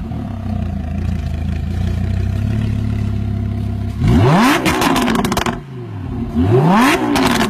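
Lamborghini Huracán's V10 engine idling steadily, then revved twice: a sharp rise in pitch about four seconds in that drops back to idle, and a second rev near the end.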